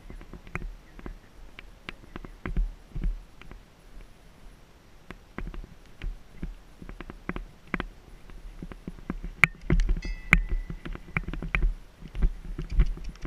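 Horse cantering on grass, its hoofbeats picked up by a helmet-mounted GoPro as a run of uneven thuds over low wind rumble, with a few brief high squeaks about ten seconds in.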